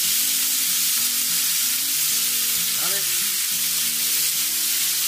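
Diced pork sizzling loudly in very hot oil in a frying pan while a spatula stirs and turns the pieces. The pan is kept hot enough that the meat keeps frying hard and sears fast.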